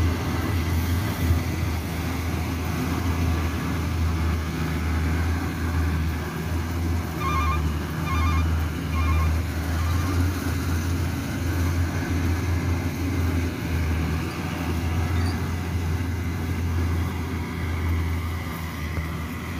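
Yanmar YH850 combine harvester running while harvesting rice: a steady low engine drone with the clatter of its threshing and cutting gear. A few short high beeps sound about a third of the way in, and the machine grows a little quieter near the end as it moves off.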